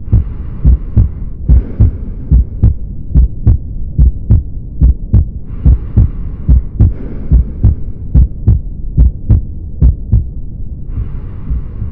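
Heart sounds heard through a stethoscope: a regular lub-dub rhythm of short, low thumps. A soft hiss comes and goes over it in several stretches of one to two seconds.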